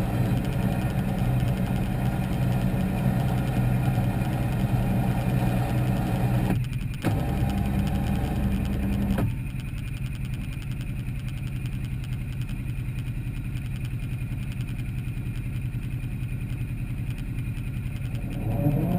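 Polaris RZR XP's engine idling steadily, its note shifting briefly about six and a half seconds in, then cutting off suddenly about nine seconds in, leaving a weaker low hum. An engine swells up again near the end.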